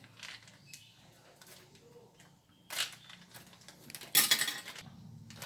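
A delivery package being handled and torn open: faint rustling and small clicks, a short tearing burst near the middle, and a louder, longer one about four seconds in.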